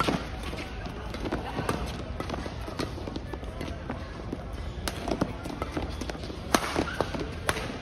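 Badminton doubles rally: rackets striking the shuttlecock in a quick exchange, a sharp crack every second or so with the hardest hit near the end, amid players' footwork on the court in a large, echoing hall.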